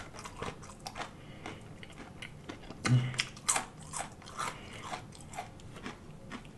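Close-miked chewing of crispy breaded fried okra: a string of sharp, irregular crunches. The loudest bites come about three seconds in.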